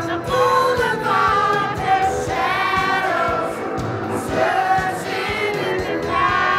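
Music with a steady beat and several voices singing, loud and close, with women singing along.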